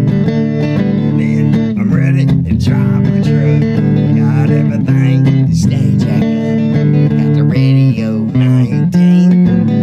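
Guitar music with a bass guitar line, a slow country-style song in an instrumental passage with no singing.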